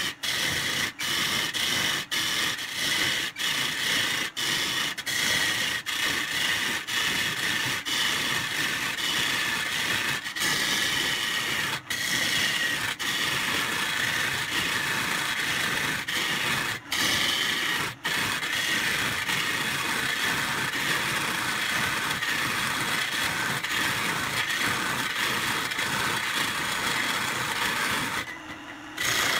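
Turning tool cutting into an old pine blank spinning on a wood lathe: a steady scraping hiss, broken by many brief gaps, that drops away for about a second near the end.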